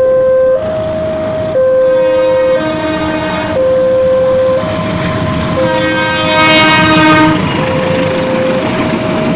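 A train approaches and passes close by, sounding its horn twice, briefly about a second and a half in and longer around six to seven seconds in, while its running noise grows loud as the coaches go by. Throughout, a warning tone alternates between two pitches about once a second.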